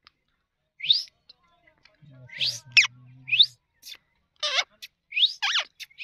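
Indian ringneck parakeet giving a series of short whistled calls, most of them quick rising sweeps and a couple sliding downward.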